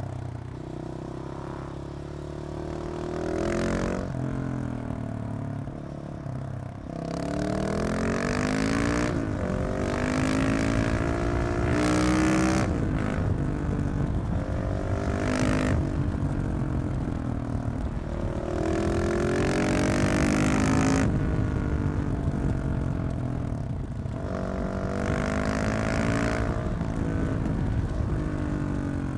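KTM 690 SMC R single-cylinder engine through a de-catted Leovince exhaust, pulling hard several times with rising pitch, dropping back between pulls as it shifts or backs off.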